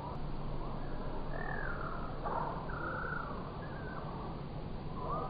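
Crows cawing, several arching calls a second or so apart, over a steady low hum.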